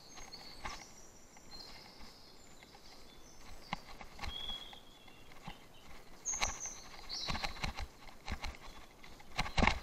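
Bicycle clattering and rattling over rough off-road ground in irregular knocks, lighter in the middle and busier in the second half. A few short high chirps come through over it.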